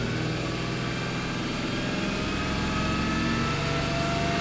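Subaru Legacy B4 3.0R's EZ30 flat-six boxer engine free-revving in park, held steady at about 2,500 to 3,000 rpm and edging slightly higher near the end. Heard from inside the cabin.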